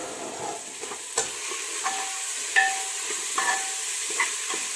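Sliced onions sizzling in hot oil in a pressure cooker as they are stirred, with a steady frying hiss. A spoon scrapes and knocks against the pot several times, and the pot rings briefly with each knock.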